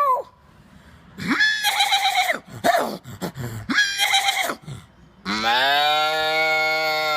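A man imitating farm animals with his voice: three short calls, then from about five seconds in one long, steady cow-like moo.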